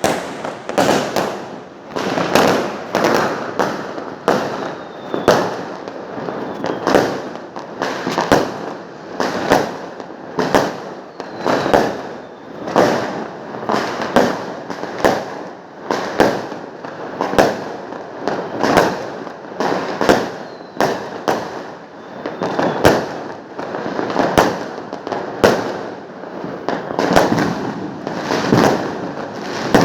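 Fireworks display: aerial shells bursting one after another, about one to two bangs a second, each with an echoing tail.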